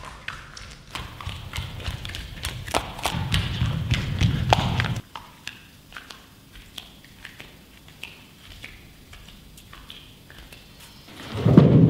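Scattered knocks and thumps of bare feet on a stage floor and wooden chairs and a table being handled. Under the first half runs a low rumble that grows louder and cuts off abruptly about five seconds in. A louder burst of sound comes near the end.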